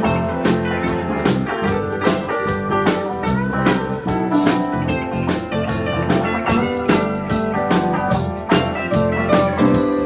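Live rock band playing with electric guitars, bass, keyboard and drum kit, the drums keeping a steady beat.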